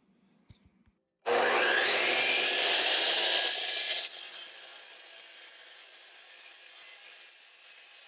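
Electric miter saw switched on about a second in, its motor whining up to speed and running loud for about three seconds, then dropping off suddenly to a much quieter steady hiss.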